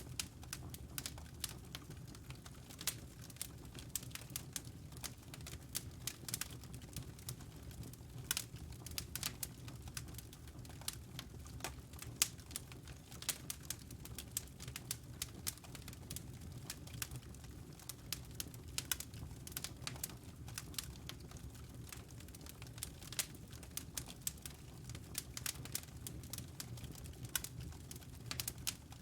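Wood logs burning in a fireplace, crackling with many small irregular pops and snaps over a low, steady rumble of the flames.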